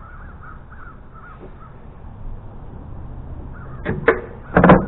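A few sharp metal clanks and knocks about four seconds in and near the end, as the belt tensioner spring on a DR Pro XL SP stump grinder is worked back into place. Faint birds chirp at first.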